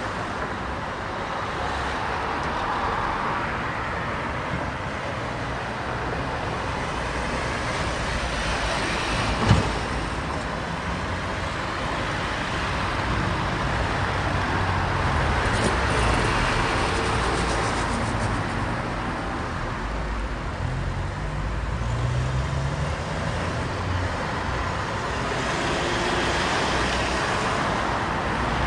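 Steady city street traffic: vehicles passing one after another, the sound swelling and fading with each, with a single sharp thump about nine and a half seconds in.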